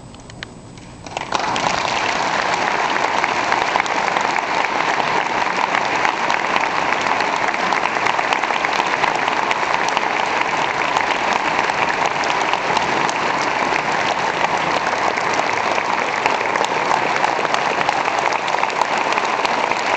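A brief hush after the final chord, then the audience breaks into applause about a second in, many hands clapping steadily.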